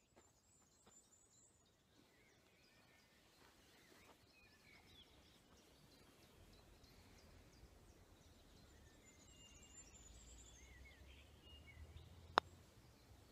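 Near silence outdoors with faint bird chirps, then a single sharp click near the end as a mallet putter strikes a golf ball on the green.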